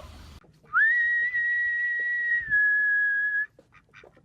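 A single long whistle that sweeps quickly up to a high, steady pitch and holds. Partway through it drops a little lower, then cuts off suddenly.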